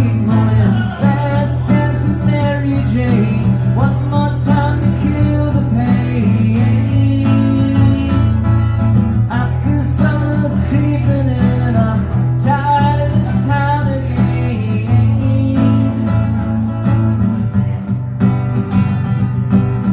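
A man singing to a strummed acoustic guitar, played live.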